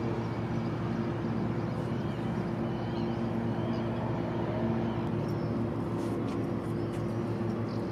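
A steady low engine hum with a couple of held tones, from the running machinery of a moored vessel. Faint bird chirps sound above it.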